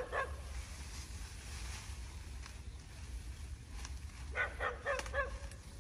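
Short animal calls: one at the start, then a quick run of about five about four seconds in, over a steady low rumble.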